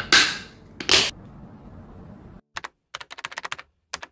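A plastic lid is pressed down onto a glass food container: two loud clattering sounds in the first second. About two and a half seconds in, a rapid run of typing clicks starts and keeps going.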